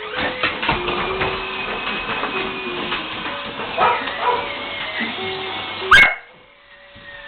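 Blue Heeler barking and yipping, with the toy train's electronic tune playing underneath. One very loud, sharp bark comes near the end.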